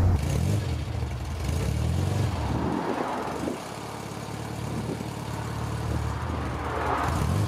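1968 Morris Minor's four-cylinder A-series engine running, heard at the exhaust tailpipe; the note swells a couple of times.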